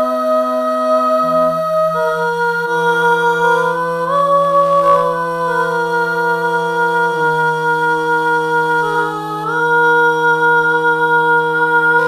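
Realivox Blue sampled female voice played from a keyboard, singing held chords of two or three sustained notes. The chords shift every few seconds, with short legato glides from note to note.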